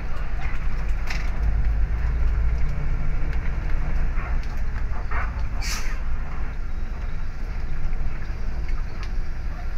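Bus diesel engine running steadily at low speed, heard inside the driver's cab as a deep rumble, with scattered light rattles and one short hiss a little past halfway. The engine is running normally again after air that entered its fuel line at a fuel filter change was pumped out.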